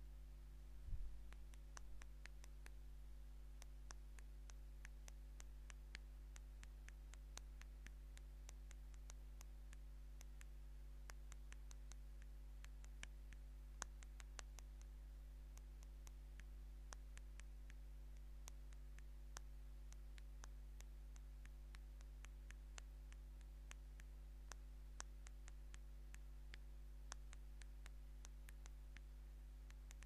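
Fingernails tapping on an LG touch-screen phone's glass while typing a text: faint, short clicks at an uneven pace of a few per second, over a steady low hum. A low thump comes about a second in.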